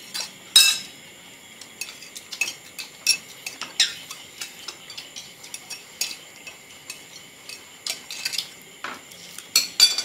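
Metal spoons and chopsticks clinking and scraping against ceramic plates and bowls while people eat, in quick irregular clinks, with one louder ringing clink about half a second in.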